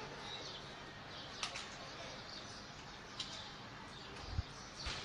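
Faint steady background hiss of the city, with a few short high chirps, likely birds, and a low thump near the end.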